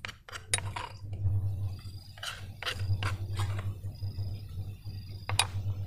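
A kitchen utensil clinking against a glass or ceramic bowl, about nine separate, irregularly spaced clinks, over a low steady hum.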